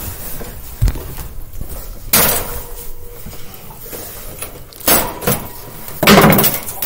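Metal wire cage panels and their packaging being handled: a run of clattering and rustling with four loud sudden bursts, about one, two, five and six seconds in.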